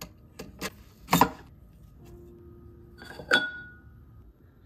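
Metal clinks and knocks as the metal mesh parts basket of a watch cleaning machine is fitted onto the machine's spindle. The loudest clink comes about a second in, and another past the three-second mark rings briefly.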